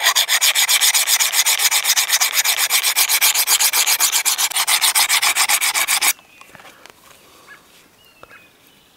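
Work Sharp field sharpener's coarse diamond plate stroked rapidly back and forth along a parang's edge, many quick even scraping strokes that stop abruptly about six seconds in. This is the coarse pass on the blade's second side, pushing the burr raised on the first side over to the other side.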